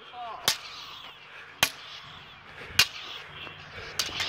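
Toy lightsaber blades striking each other in a duel: four sharp clashes, a little over a second apart.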